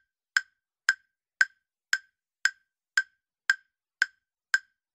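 Quiz countdown timer sound effect: short, sharp, woody ticks, evenly spaced at about two a second.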